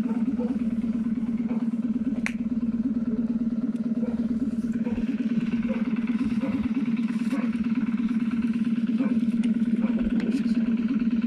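ER9T electric multiple unit standing at the platform with its on-board auxiliary machinery running: a steady low hum with a fast pulsing to it and a few faint ticks.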